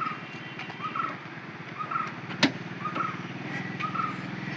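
A vehicle engine idling with a steady low hum. A short chirp repeats about once a second over it, and a single sharp metallic clank comes about halfway through.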